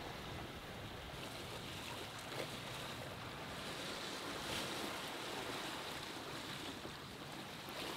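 Sea water rushing and splashing along the hull of a Pearson 35 sailboat under sail, a steady wash with some wind on the microphone.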